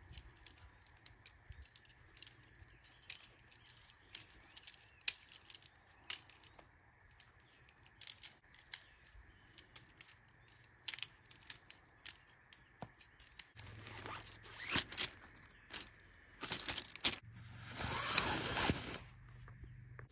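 Camping gear being handled: many small clicks and light rustling as a tent cord is worked, with louder rustling and scraping over the last few seconds.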